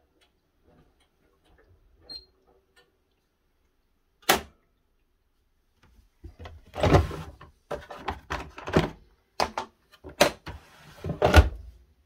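A single sharp click about four seconds in, then a quick run of knocks, thuds and rustling from about six seconds on, as from a front-loading washing machine's door being opened and its drum being handled.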